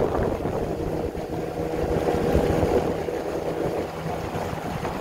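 Small boat's motor running steadily as the boat travels along a river, a constant drone with a low rumble, and wind buffeting the microphone.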